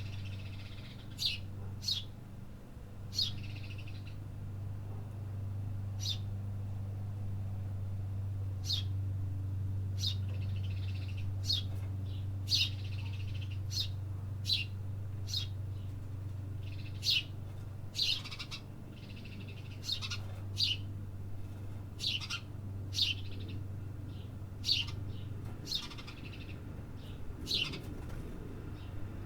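City birds chirping: many short, sharp chirps at irregular intervals, over a steady low hum that fades out near the end.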